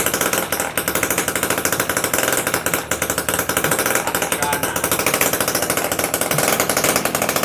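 Small two-stroke engine running steadily, a fast, even, rattling beat with no change in speed.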